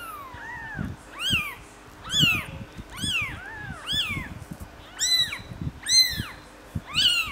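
Newborn kittens, about three days old, crying in high, thin mews about once a second, each call rising and then falling in pitch. Soft scuffling sounds underneath.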